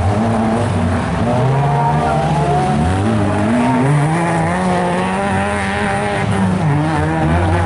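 Engines of several small racing hatchbacks on a rallycross circuit, revving and shifting as they lap. Their pitch climbs and drops in steps with each gear change, one engine overlapping another.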